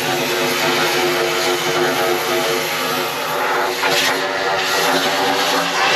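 Oxy-fuel cutting torch hissing as it cuts through the steel spindle of a trailer axle, over a steady engine drone, with a brief swell in the hiss about four seconds in.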